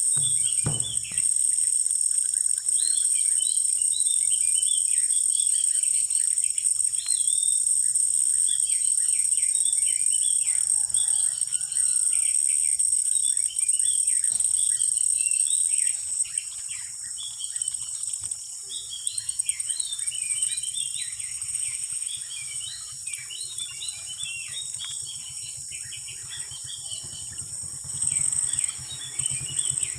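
Insects droning in a steady, high-pitched band, with many small birds chirping over it. The drone drops in level about halfway through. A couple of low knocks come right at the start.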